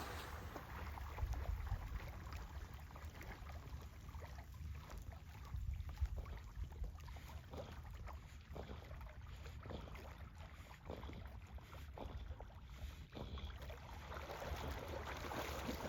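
Faint water splashing and lapping, in many small scattered bursts over a low steady rumble: a black retriever swimming out to fetch a downed duck.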